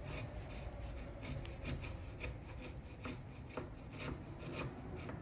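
Short, repeated scraping strokes of a hand tool slicing thin shavings off the side of a wooden dovetail tail, about two to three a second. The wood is being eased so the tail fits snugly into its socket without being forced.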